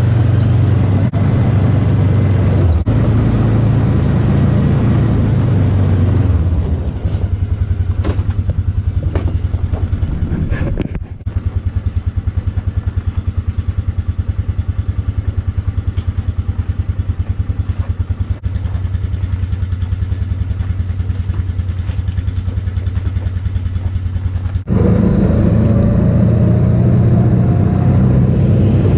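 Engine of a twenty-some-year-old Ranger UTV running, loud and full at first. It drops about six seconds in to a steady, evenly pulsing run, dips briefly near eleven seconds, and picks up again about twenty-five seconds in.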